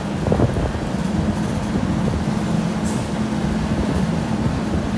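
Open-air zoo tram on the move: a steady engine drone over the low rumble of the passenger carriages rolling along the road.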